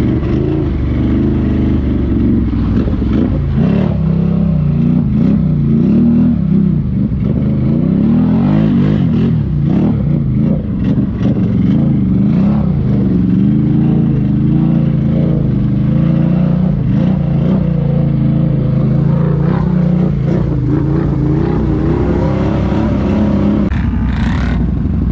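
Can-Am Renegade ATV engine running under throttle, revving up and down as it pushes through a muddy puddle, with water splashing.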